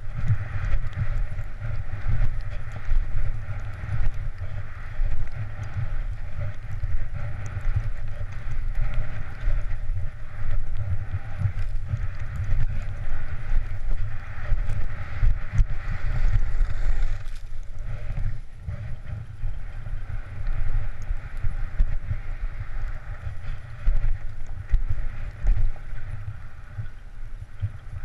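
Wind buffeting a helmet-mounted camera's microphone as a skier descends, a loud gusting rumble, with the hiss and scrape of skis running over snow underneath. It eases briefly a little past halfway.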